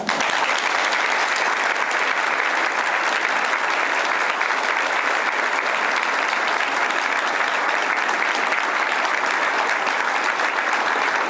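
A crowd of people clapping steadily after a speech ends. The applause starts at once, holds an even level throughout, and carries no words.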